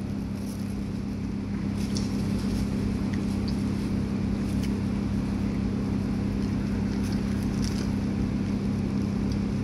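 Steady low mechanical hum, like a motor or appliance running, with a few faint clicks.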